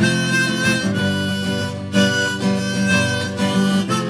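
Instrumental break in a song: a harmonica melody of held notes over strummed guitar.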